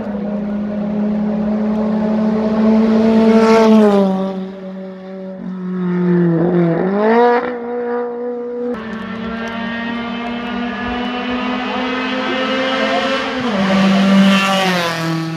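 Rally car engines at high revs passing close by, the pitch falling steeply as each car goes past, about four seconds in and again near the end. In between, an engine note dips and then climbs sharply as the throttle comes off and back on.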